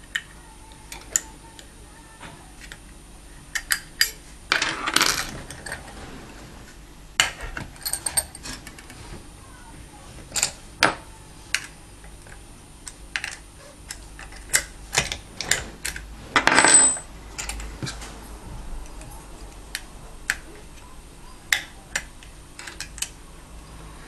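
Metal lock picks clicking and scraping inside a cruciform lock while it is single-pin picked. Irregular sharp ticks, with a longer scraping rattle about five seconds in and another around seventeen seconds.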